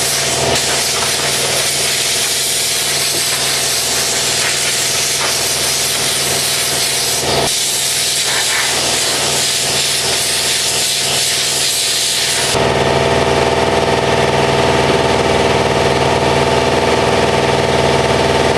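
Compressed air hissing from an air blow gun as sanding dust is blown off a truck tailgate, with a brief break near the middle. The hiss stops about two-thirds through, leaving a steady machine hum that runs underneath throughout.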